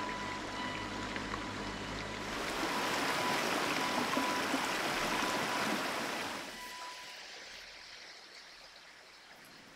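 A shallow rocky stream running, its rushing water swelling louder about two seconds in and then fading away after about six and a half seconds.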